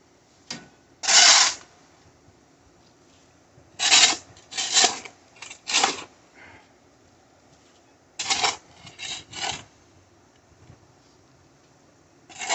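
Shovel blade scraping packed dirt off a concrete slab in short strokes, coming in three bunches with pauses between.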